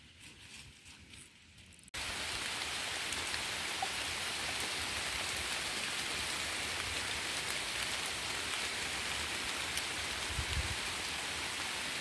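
Heavy downpour falling steadily on a river surface, a dense, even hiss of rain that cuts in suddenly about two seconds in after a faint rustle.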